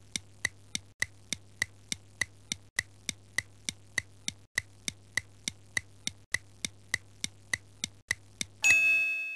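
Countdown timer sound effect: a clock ticking steadily at about three and a half ticks a second, marking the quiz's time limit, then a loud bright bell ding near the end that rings on and fades as time runs out.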